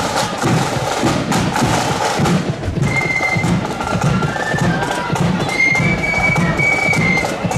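Marching flute band on parade: bass and side drums beat a steady march with sharp clicking strokes, and about three seconds in high-pitched flutes strike up a tune over the drums.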